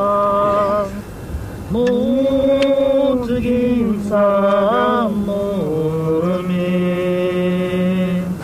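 Chanted singing: a steady low drone held under a sung line that rises and falls in slow phrases.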